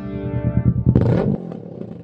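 Kawasaki Z650's parallel-twin engine through a Lextek XP13C aftermarket silencer, revving briefly about a second in, then dropping back to an idle of even exhaust pulses. The tail of the synth intro music fades out underneath at first.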